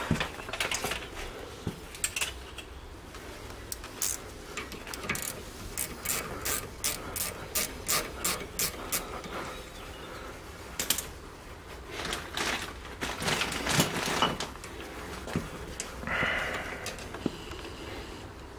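Ratchet wrench clicking as it turns a bolt on the rear brake caliper. A run of even clicks quickens to about three a second, followed by a few louder metal knocks and scrapes as the caliper parts are handled.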